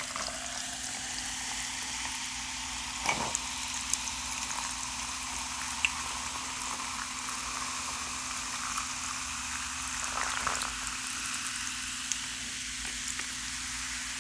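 RC Cola poured from a can into a tall glass, the carbonation fizzing in a steady hiss as the foam rises, with a few sharp clicks.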